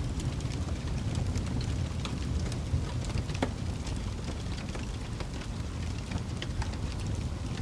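Wood fire burning with a steady low rumble of flames and frequent irregular pops and snaps.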